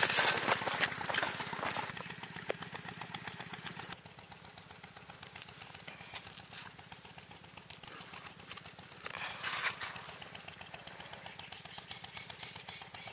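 A small engine running steadily in the background, a low even hum. Leaves and plants rustle close by, loudest in the first two seconds and again about nine seconds in.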